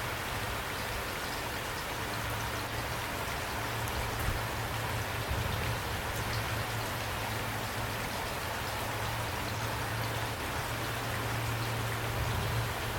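Steady rain falling at night, a dense even hiss with scattered individual drop ticks, over a steady low hum.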